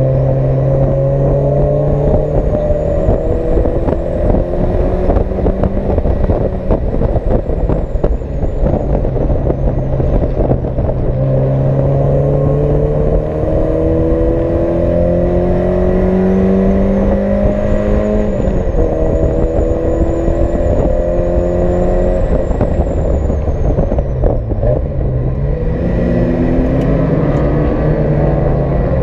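Race car engine heard from inside the cockpit under hard acceleration, the revs climbing and dropping sharply at each upshift. Near the end the revs fall away under braking and climb again as it pulls out of a corner.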